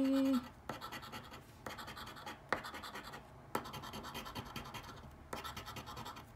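Coin-like token scratching the coating off a scratch-off lottery ticket, in runs of quick rasping strokes with short pauses between them.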